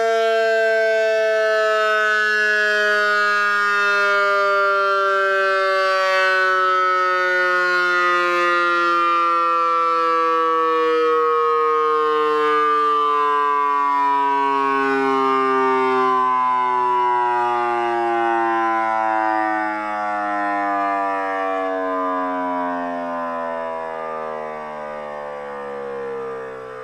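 Federal Signal eQ2B electronic siren winding down like a mechanical Q2B: one continuous, rich siren tone sliding slowly and steadily down in pitch, fading over its last several seconds.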